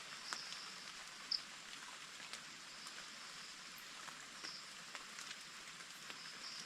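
Light rain falling with scattered drips, faint and steady, with a few short high chirps over it.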